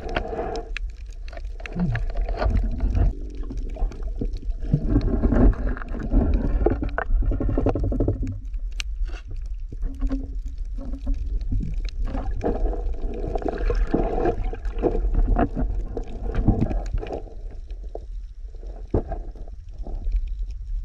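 Underwater sound heard through a camera housing: a muffled, low rumble of moving water that swells and fades, with gurgling and many scattered sharp clicks and knocks.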